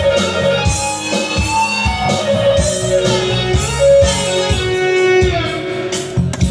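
Music with guitar, held notes and a steady beat, played loud in the bar.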